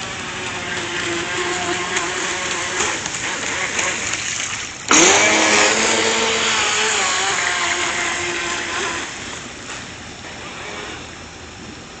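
Pro Boat Impulse 26 RC boat running at speed: a high whine from its brushless electric motor over the hiss of hull and spray. About five seconds in it passes close by, suddenly much louder, and its pitch drops as it goes past; it then fades as the boat runs off across the pool.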